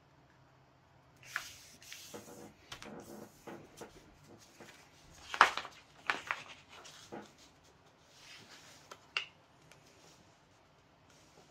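A sheet of paper rustling and crackling as it is unfolded, folded over and pressed flat by hand, in irregular bursts from about a second in, the loudest crackle about halfway.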